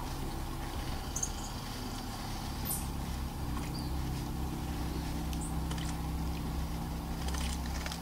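Steady low mechanical hum, like an engine running in the distance, with a few faint, brief high ticks and splashes as a black-capped chickadee bathes in a birdbath.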